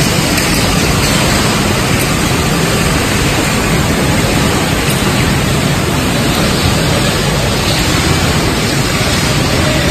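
Steady, loud, even industrial din in an aluminium coil factory hall, with no distinct knocks or voices.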